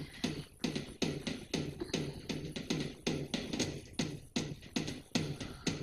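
Music with a steady, quick beat, about three strokes a second, each with a low falling tone.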